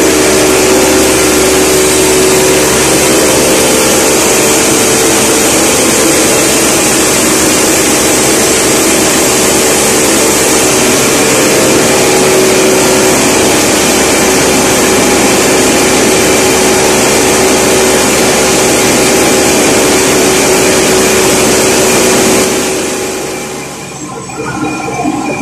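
Machinery of a modern olive oil mill running loudly and steadily, a constant mechanical drone with a hum through it, which dies away near the end.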